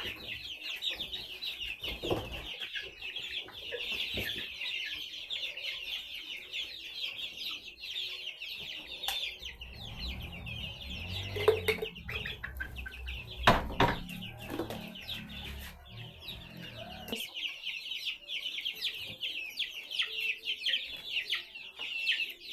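A flock of chickens calling all at once: a dense, continuous, high-pitched chorus. Midway a low rumble runs for several seconds, with a couple of sharp knocks.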